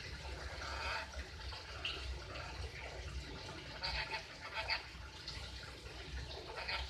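Lory parrot chattering in short, scattered squawks and chirps, over a steady low hum.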